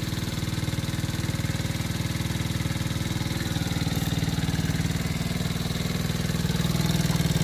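Small 49cc engine of a Chinese kids' ATV running steadily, getting a little louder near the end.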